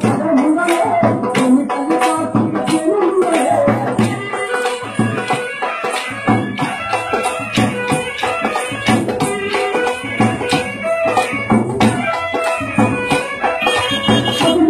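Rhythmic folk music for a kolatam stick dance. A steady drum beat runs under a wavering melody, with sharp clicks several times a second.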